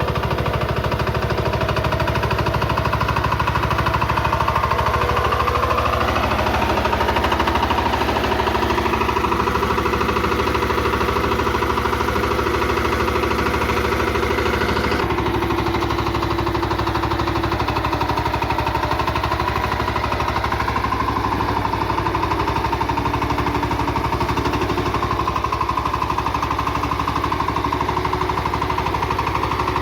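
VST Shakti 130 DI power tiller's single-cylinder diesel engine running steadily with a fast, even beat. Its tone changes abruptly about halfway through.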